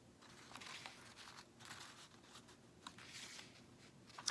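Faint paper rustling as a tag is slipped into a pocket and the pages of a handmade paper-bag journal are turned, with a light click near the end.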